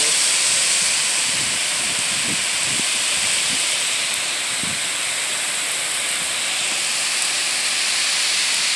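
Heavy rain pouring down steadily onto a parking lot and parked cars: a dense, even hiss.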